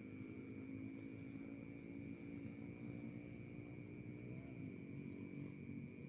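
Night insects chirping: a fast, even run of short high chirps starts about a second in, over a steady high-pitched drone and a faint low hum.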